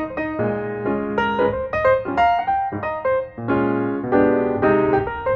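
Background piano music, a run of separate notes at an even, gentle pace.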